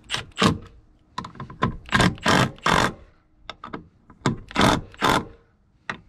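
Cordless driver run in about ten short trigger bursts, tightening the T50 Torx bolts of a pickup door's latch striker plate.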